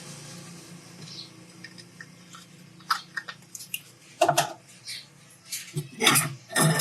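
Small tools being handled on a phone-repair bench: a run of sharp clicks and taps starting about halfway through, over a faint steady hum that fades early on.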